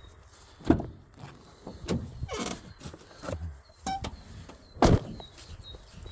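Wooden beehive parts being handled: a run of knocks and scrapes, with two sharp thumps about a second in and near five seconds, and a brief squeak in between.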